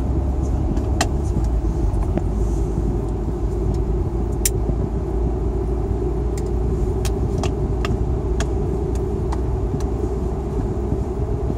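Steady road and engine noise of a car driving at speed, heard inside the cabin: a continuous low rumble with scattered light ticks.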